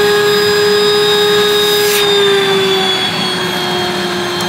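Canister vacuum cleaner running with a steady motor whine as its hose sucks the air out of a vacuum storage bag through the bag's valve. The whine sinks slightly in pitch over the last couple of seconds.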